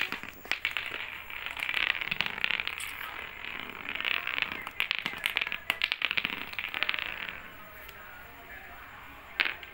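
Lato-lato clacker toy, two hard plastic balls on a string, swung so the balls knock together in quick clusters of sharp clacks, with rustling in between. The clacking dies down about eight seconds in.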